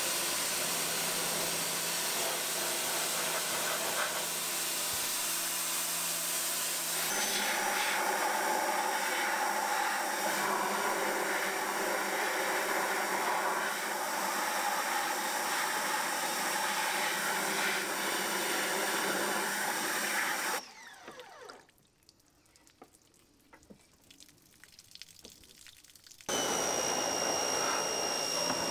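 Pressure washer running and spraying water into the engine compartment of a jet ski hull. It cuts off about 21 seconds in and starts again about five seconds later with a high whine.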